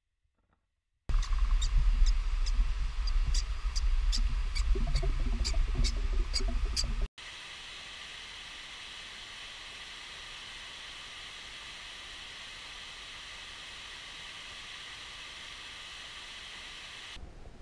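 Small waterfall pouring into a creek pool: a steady, even rushing. Before it, from about a second in until a sudden cut near seven seconds, a louder low rumble with a run of sharp clicks.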